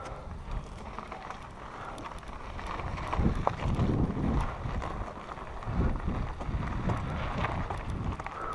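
Mountain bike riding over a loose gravel and rock trail: tyres crunching and the bike rattling and knocking over the stones, with heavier jolts about three seconds in and again near six seconds.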